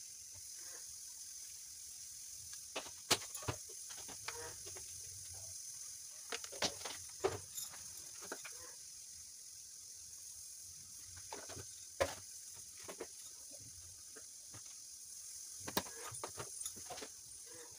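Quiet kitchen handling noise: scattered sharp clicks and light knocks against a stainless steel bowl while okra is slit and spice powder is added, over a steady hiss. A few faint short pitched sounds come and go in the background.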